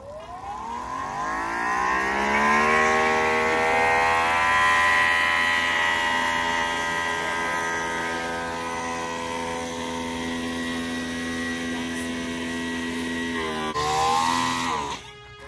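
Greenworks Pro electric pressure washer's motor and pump spinning up with a rising whine as the trigger is squeezed, then running steadily while spraying through the foam cannon. Near the end the whine dips, briefly picks up again, and cuts off.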